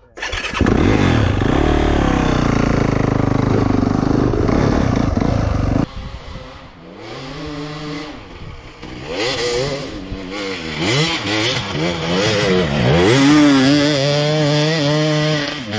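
Dirt bike engine revving hard while being ridden, its pitch repeatedly rising and falling with throttle and gear changes. The first six seconds or so are a loud, steady rush of noise that cuts off suddenly.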